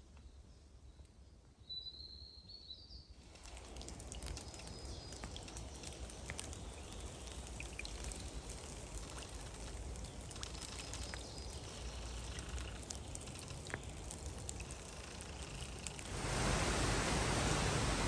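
Light rain falling on a forest puddle and leaf litter: many small drop ticks over a steady hiss, starting about three seconds in. A brief high call sounds just before the rain comes in, and near the end a louder, even hiss takes over.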